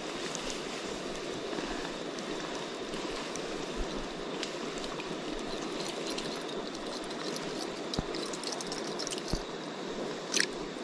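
River water running steadily over rocks, a constant rushing hiss, with a few light clicks.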